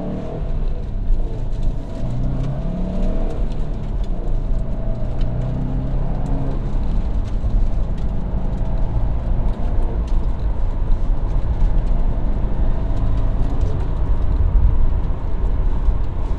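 Warmed-up, stock 2012 Subaru WRX STI's turbocharged 2.5-litre flat-four engine pulling hard up through the gears, heard from inside the cabin: the engine note climbs in pitch, then drops back at each upshift, several times over, over a steady low road rumble.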